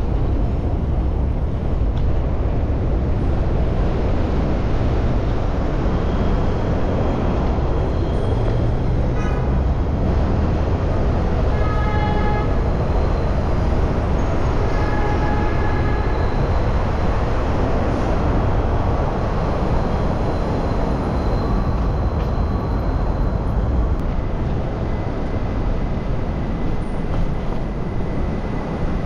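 Steady rumble of wind on the microphone and road noise from a bicycle riding through city traffic, with a few short high squeals between about nine and sixteen seconds in.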